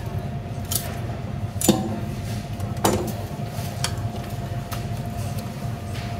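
Knife and fish being handled on a plastic chopping board: a handful of short, sharp knocks and clicks as the halibut's head is cut free and lifted. The loudest knock comes a little under two seconds in, over a steady low background hum.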